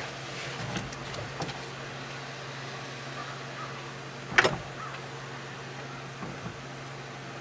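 A vehicle engine idling steadily with a low hum: the truck supplying the jump start. One sharp knock comes about four and a half seconds in.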